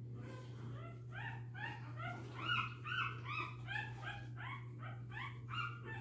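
Week-old American bully puppies squealing and whimpering in a rapid run of short, high cries, about three a second, beginning about a second in.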